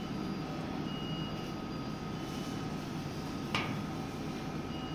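Steady background hum with a few faint steady tones, and one small sharp click about three and a half seconds in as a blade and a short piece of ink tubing are handled.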